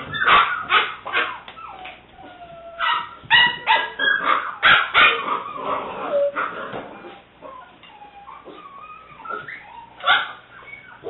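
Seven-week-old English Springer Spaniel puppy barking and yipping in short, sharp bursts, with softer whines in a quieter stretch past the middle.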